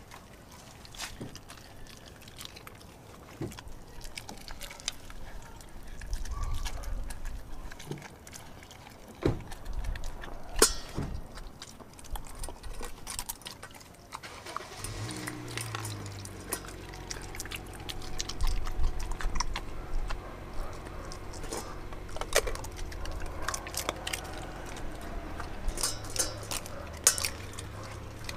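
A German shepherd–pit bull mix eating raw meat and bone from a stainless steel bowl: wet chewing and crunching, with many short, sharp clicks of teeth on bone and the bowl. From about halfway, a low steady hum runs underneath.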